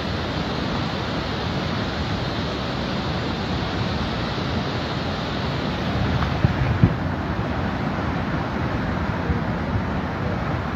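Avalanche of snow and ice chunks flowing down a gully: a continuous, steady rushing noise, with a couple of brief louder knocks about two-thirds of the way through.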